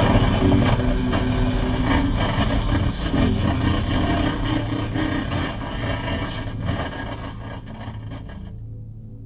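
Dense rumbling, clattering noise over a steady low hum, slowly fading. About eight and a half seconds in, the higher clatter cuts off suddenly and only the low hum remains.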